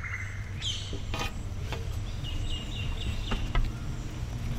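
Outdoor rural ambience: a steady low rumble with a few sharp clicks, and a quick run of high chirps, like a small bird calling, a little past halfway through.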